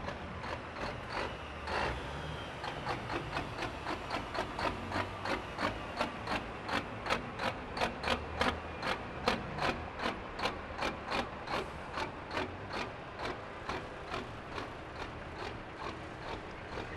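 Semi trucks' diesel engines rumbling as they roll slowly past, under a regular sharp clicking about three times a second that grows louder toward the middle and then fades.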